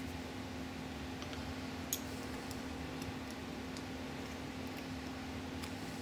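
Faint, sparse clicks of a wire and a pair of pliers being handled against a small 3D-printed plastic part, with one sharper click about two seconds in, over a steady low hum.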